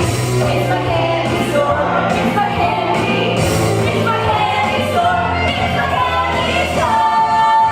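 Musical-theatre song: singing over backing music with a steady bass line, ending on one long held note.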